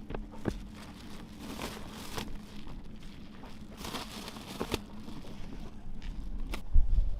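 Crinkling, rustling handling sounds with scattered light clicks. Near the end a low rumble of wind on the microphone sets in.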